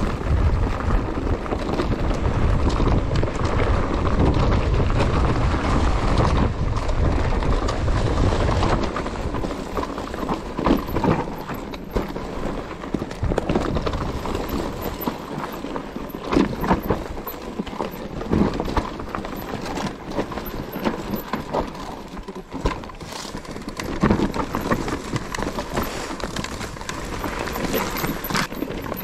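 Mountain bike rolling fast down a rocky trail: tyres crunching over stones and the bike rattling, with irregular knocks and clatter. Wind rumbles on the microphone for the first nine seconds or so.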